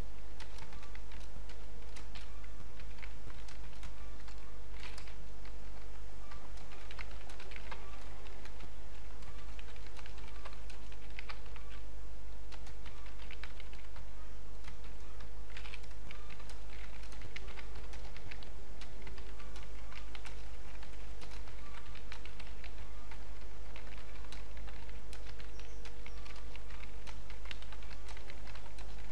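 Typing on a computer keyboard: a continuous run of quick, irregular key clicks over a steady low hum.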